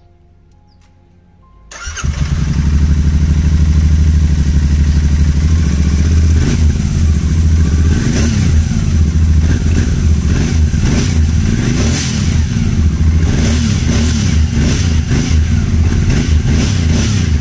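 Royal Enfield Interceptor 650's 648 cc parallel-twin on its stock exhaust, started up with a sudden catch about two seconds in, then running at idle. From about six seconds on the throttle is blipped again and again in short revs.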